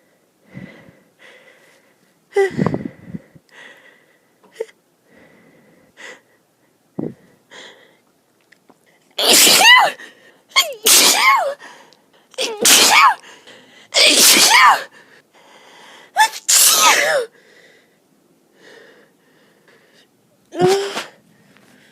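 A woman sneezing in an allergy fit, not taking her antihistamines. Faint sniffs and breaths come first, then from about nine seconds in a run of five loud voiced sneezes about a second and a half apart, and one shorter one near the end.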